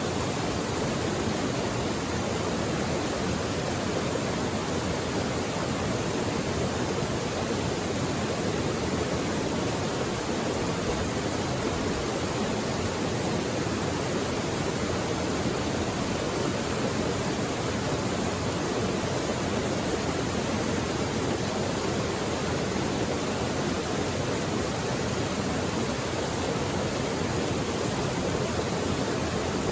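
Mountain creek flowing, a steady rushing of water with no pauses or changes.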